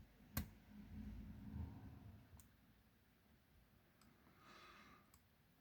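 Faint clicks and light scraping of lock picks working in a padlock's cylinder, with one sharper click about half a second in and another about two seconds later.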